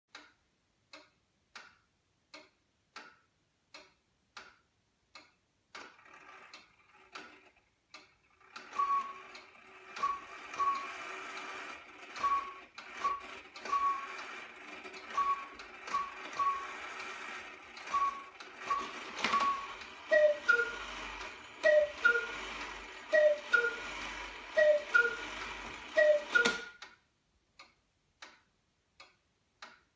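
Georg Schildecker quail cuckoo clock (Black Forest, c. 1850–60) ticking at about one and a half beats a second, then its striking train starting up and the bellows-blown quail calling several short groups of high notes for the quarters. Then the cuckoo calls five times, each a two-note falling call, striking five o'clock, and the ticking goes on alone.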